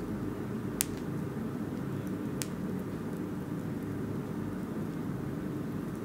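Wood fire burning in a fireplace: a steady low rumble of the flames, with two sharp crackling pops, one about a second in and another about two and a half seconds in.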